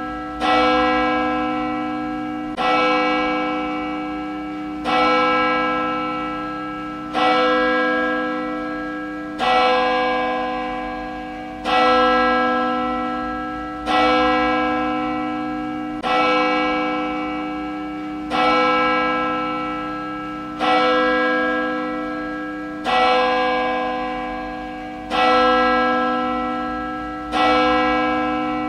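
A single church bell tolling slowly and evenly, struck about every two and a quarter seconds, each stroke ringing on and fading until the next.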